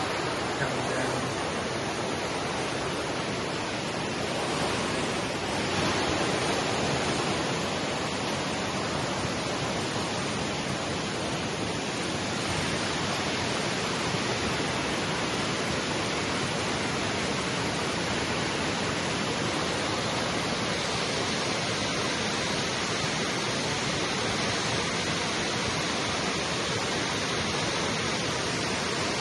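Waterfall's rushing water, a steady, even wash of noise that does not change.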